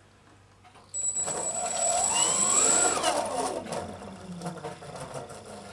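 Two contra-rotating brushless motors with propellers spun up on the throttle and back down. The whine starts suddenly about a second in, rises in pitch with a steady high tone over it, then falls away about two seconds later.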